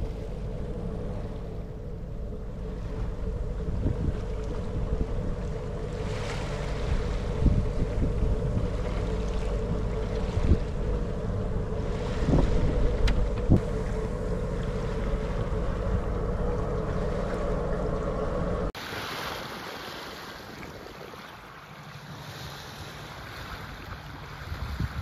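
A boat under way: a steady engine drone and rumble with water and wind on the microphone, and a few sharp knocks. About three-quarters of the way through, the sound cuts abruptly to a quieter wash of wind and water.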